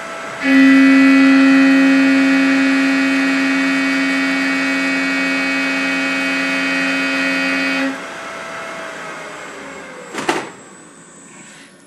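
CNC milling machine cutting with a 3-flute carbide roughing end mill spinning at 5400 RPM: a loud, steady, pitched hum of the teeth biting into the work starts about half a second in and stops abruptly about eight seconds in. The spindle then winds down with a faint falling tone, and a single sharp clack comes about ten seconds in.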